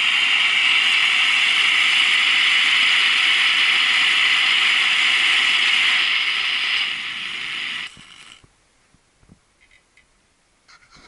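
Gas blowtorch on its canister burning with a steady hiss, which steps down about seven seconds in and cuts off a second later as the flame is shut off.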